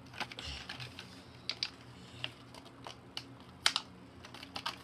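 Scattered light clicks and taps from a plastic blister-card keychain package being handled, at irregular intervals.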